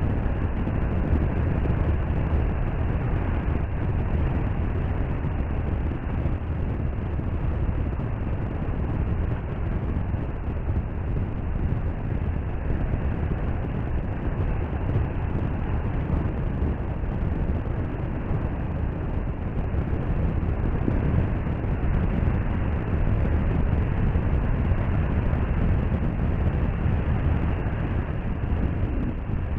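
Sea waves washing onto a beach: a steady low rumble of surf with gentle swells in loudness and no distinct single breaks.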